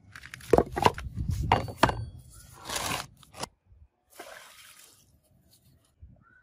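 Knocks and scrapes of things being handled and set down on a concrete surface: a quick run of sharp knocks and scraping over the first three seconds or so, then a brief softer rustle.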